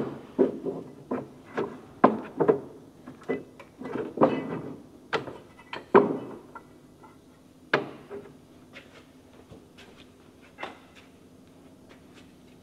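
Irregular clicks, knocks and short metallic clinks from hands working on a tractor's fan drive and belt sheaves. They come thickly at first, some ringing briefly, then thin to a few scattered clicks in the second half.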